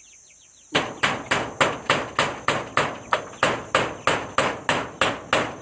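Hammer driving a nail with quick, even blows, about four a second, starting just under a second in.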